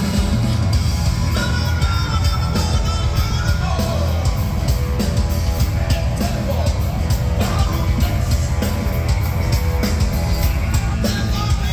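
Live hard rock band playing loud through a concert PA: electric guitars, electric bass and drum kit under a lead vocal, heard from within the audience.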